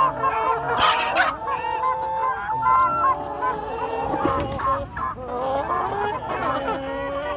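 A flock of farm birds calling, many pitched calls overlapping without pause.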